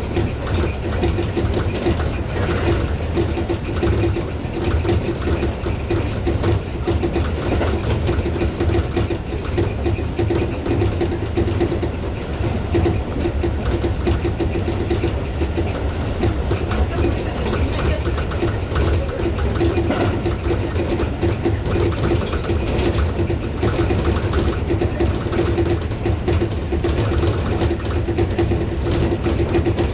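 Tobu 6050 series electric train running at speed: steady wheel-on-rail rumble and clatter with a steady hum and a faint high whine.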